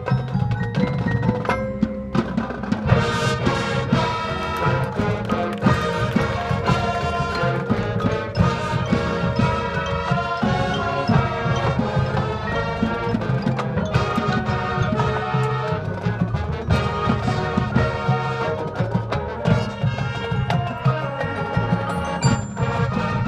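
Marching band playing a halftime show with its front-ensemble mallet percussion, bells and drums prominent.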